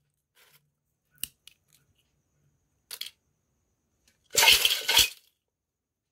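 Fried banana chips rustling and clinking against the sides of a steel pot as a hand stirs them: a few faint clicks, then a louder crackly rustle lasting about a second a little past the middle.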